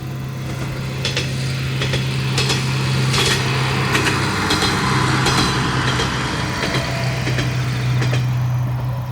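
Kanto Railway KiHa 5000-series diesel railcar running, a steady low diesel engine drone with wheels-on-rail rushing and clicks that grow louder through the middle and ease off near the end.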